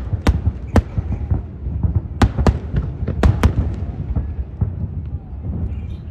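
Fireworks display: a string of sharp aerial shell bursts at irregular intervals, at times two within half a second, over a steady low rumble.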